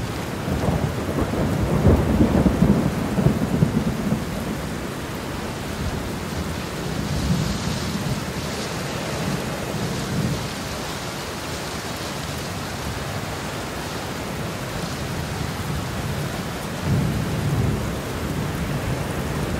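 Steady heavy rain with thunder rumbling several times, loudest a couple of seconds in and swelling again briefly near the end.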